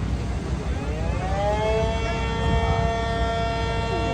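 Mini sirens winding up together, their tones rising over about a second, then holding a steady chord of several notes. A steady low rumble runs underneath.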